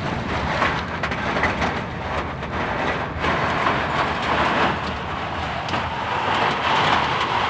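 Storm wind blowing hard in a steady roar, with hail and rain falling, heard as many small, quick hits within it.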